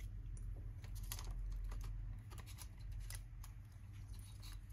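Light, irregular clicks and taps of small laptop parts being handled as a MacBook Air A1466 logic board is worked back into its case, over a low steady hum.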